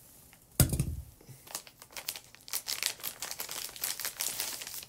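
A single thump about half a second in, then a small clear plastic bag crinkling in the hands as it is opened.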